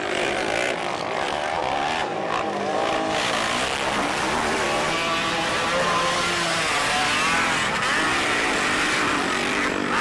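Racing quad ATVs running on a dirt track, several engines overlapping and revving up and down as the riders accelerate and back off through the turns and jumps.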